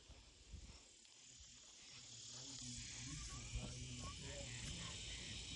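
Faint, steady chirring of crickets and other insects, with a low rumble of the phone being handled from about halfway through.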